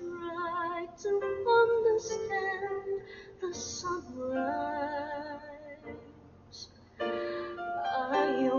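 Music: a woman's voice singing long, wavering notes, with a short pause about six seconds in.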